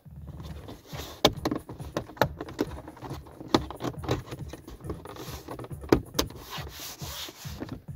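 A string of sharp plastic clicks and knocks from a VW Golf 7's overhead roof console as hands press and push the panel into place against the headliner. The loudest clicks fall about a second in, near two seconds, a little past three and a half, and at six seconds.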